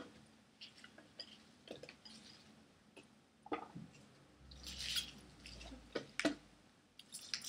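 Faint soft rustling and light taps of fresh baby spinach leaves and strawberries dropped by hand into a blender jar, with a few scattered clicks and a longer rustle about halfway through.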